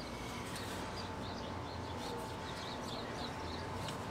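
Birds chirping faintly and repeatedly over steady background noise, with a thin steady tone running underneath.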